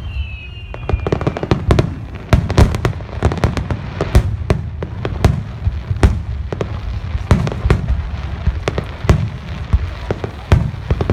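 Fireworks display finale: aerial shells bursting in a rapid, irregular barrage of sharp bangs, a few each second, over a continuous low rumble.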